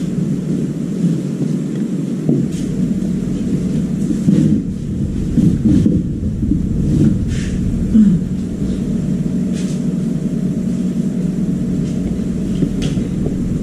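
Steady low mechanical hum with a constant low tone, with scattered light clicks and knocks from wires and plastic connectors being handled.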